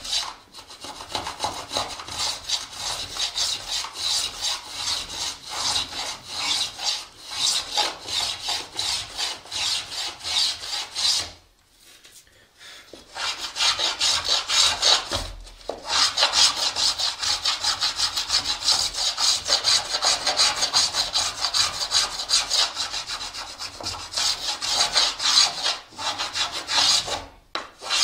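Small luthier's finger plane shaving the wooden braces on a guitar top: rapid, short rasping strokes, one after another. The strokes stop for a second or two a little before halfway, then carry on.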